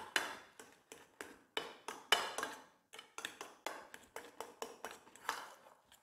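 Mixing a soft dough of steamed vegetables and grated coconut in a stainless steel bowl: irregular clicks and scrapes against the metal, several a second.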